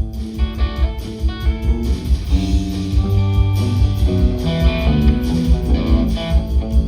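Live punk rock band playing an instrumental passage: electric guitar lines over bass and a steady drum beat, with no vocals.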